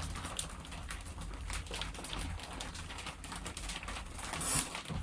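Potter's wheel running with a steady low hum, while hands work the wet clay with small clicks and wet rubbing sounds, one brighter scrape about four and a half seconds in.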